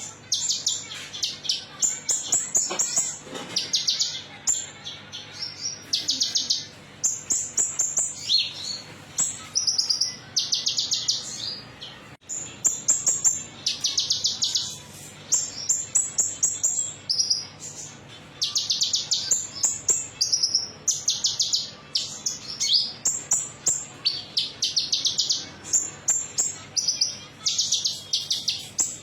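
Olive-backed sunbird singing: rapid high trills and chirps in short bursts of about a second, one after another with brief gaps.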